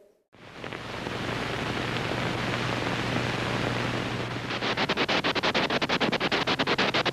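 Film projector running: a steady hiss with a low hum, joined about four and a half seconds in by a rapid, even clatter of clicks.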